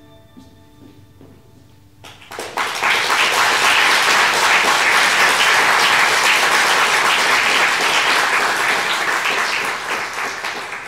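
The last harp notes ring on and fade, then an audience breaks into applause about two seconds in, holding steady and tapering off near the end.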